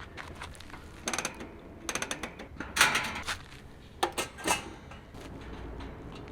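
Short runs of sharp mechanical clicks and rattles, in about five clusters, like a small ratcheting mechanism being worked by hand.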